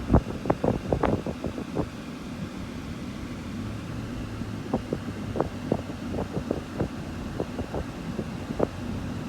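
A car driving, its steady low road and engine noise overlaid with wind buffeting the microphone in irregular thumps, heaviest in the first two seconds.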